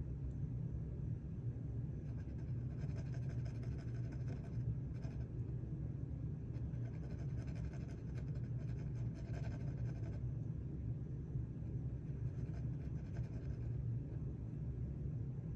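Graphite lead of a mechanical pencil scratching across a drawing panel in short shading strokes, coming in spells a few seconds apart, over a steady low hum.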